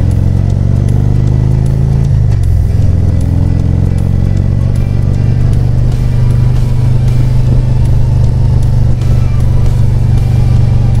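Harley-Davidson Road Glide's V-twin engine running at road speed. Its pitch climbs, drops sharply about two seconds in, and then holds steady.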